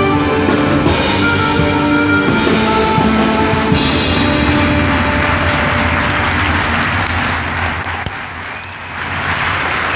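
Music with drums, giving way about four seconds in to audience applause, which dips briefly and swells again near the end.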